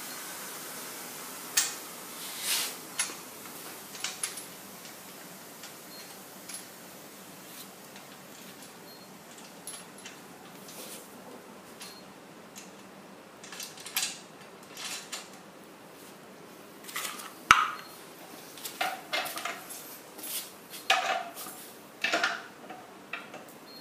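Scattered clicks and knocks of an air compressor's wheel and axle parts being handled and fitted onto the tank's bracket, sparse at first and more frequent in the second half, with one sharp knock about two-thirds of the way through.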